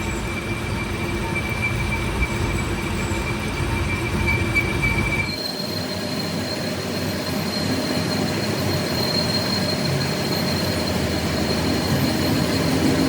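Steel being machined on a metal-cutting machine tool: a steady high squeal from the cutting tool over a low rumble of the machine. About five seconds in, the sound changes abruptly and the squeal jumps higher.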